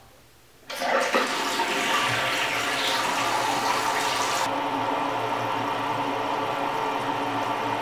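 Mansfield toilet tank refilling through its fill valve once the water is turned back on at the angle stop: a steady hiss of rushing water that starts suddenly about a second in. The highest part of the hiss eases off about halfway through.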